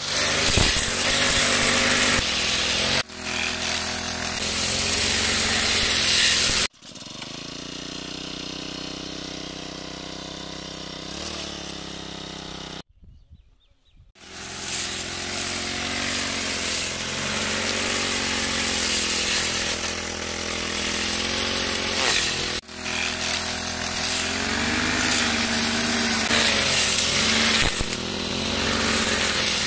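Brush cutter engine running with a metal cutting blade slashing through grass and weeds, its pitch wavering up and down as the blade bites. The sound breaks off at several cuts, drops to a quieter stretch about a quarter of the way in, and falls near silent for a moment around the middle before running loud again.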